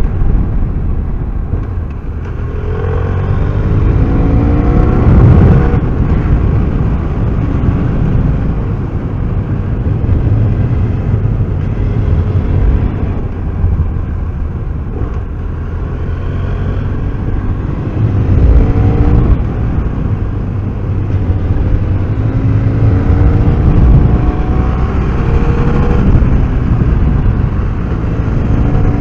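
BMW F800R's parallel-twin engine under way, its pitch rising several times as it accelerates, over a heavy low wind rumble on the microphone.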